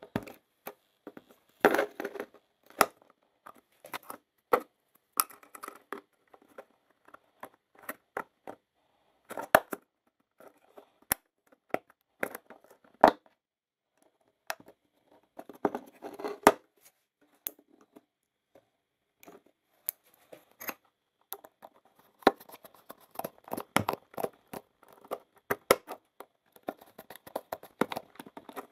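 Handwork on small parts: scattered sharp clicks and snips with brief rustling and scraping, in short separate bursts with silent gaps between.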